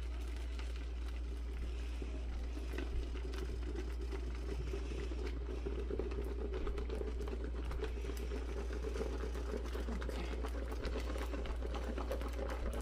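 Blended chile sauce for mole sizzling and bubbling steadily in a hot stainless steel pan as it drips through a strainer, with fine crackling throughout.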